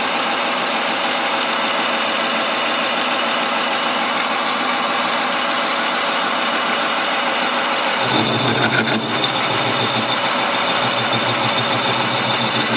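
Chinese mini-lathe running, turning a long steel pipe supported in a ball-bearing steady rest, with a steady whirring hum. About eight seconds in the sound grows louder and lower, with a brief high squeal.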